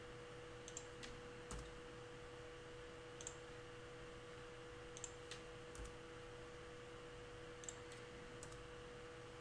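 Faint computer mouse clicks, several scattered presses, some in quick press-and-release pairs, over a steady electrical hum.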